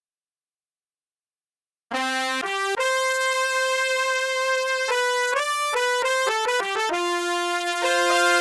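Silence, then about two seconds in a sampled brass instrument from an SF2 SoundFont starts playing a melody: two short notes, a held note, a quick run of changing notes, then another held lower note.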